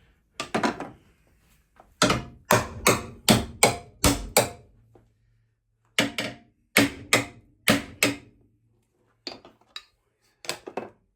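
Hammer blows on the steel of a car's bent chassis brackets, knocking them back into shape. The strikes come in runs of several hits in quick succession, with a few lighter taps near the end.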